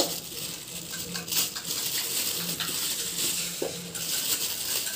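Plastic bag crinkling as lumps of jaggery are worked out of it, with a few light knocks of the lumps dropping into a metal kadai.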